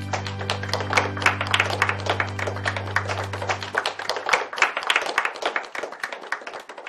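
A class of pupils clapping, dense and uneven, and thinning out near the end. Background music with a held low note plays under the clapping and stops about four seconds in.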